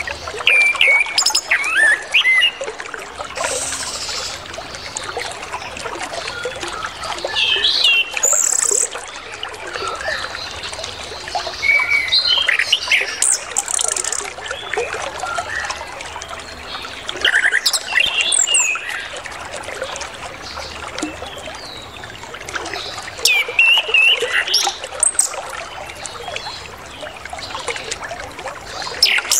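Chestnut-capped thrush (anis kembang) singing in repeated bursts of varied whistles and chirps, the mix of mimicked phrases ("isian") bird keepers prize, over a steady trickle of running water.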